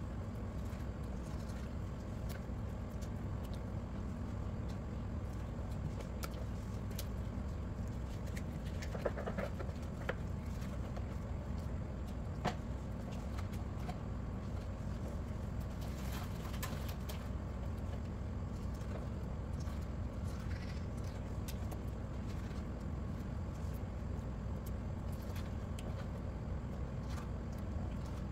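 Knife slicing raw beef on a plastic cutting board: scattered light taps of the blade on the board, with a few sharper clicks, over a steady low hum.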